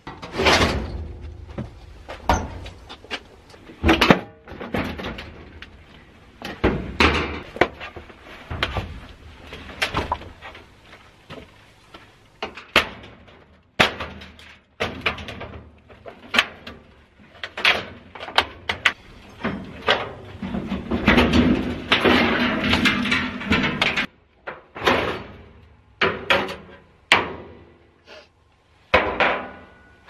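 Old clothes dryer being dismantled by hand: repeated sharp knocks, clanks and rattles of its sheet-metal cabinet and control console being pried loose and lifted off, with a denser few seconds of rattling about two-thirds of the way through.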